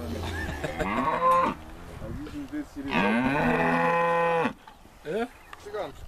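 Cattle mooing: a short moo about a second in, then a long, loud moo from about three seconds in that lasts a second and a half, and a brief call near the end.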